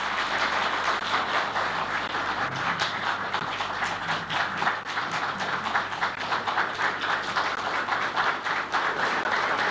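Sustained applause from a large audience clapping steadily.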